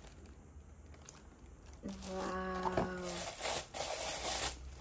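Thin clear plastic bag crinkling and rustling in the second half as a gift mug is handled and pulled about inside it. A long drawn-out 'wow' in a woman's voice comes just before.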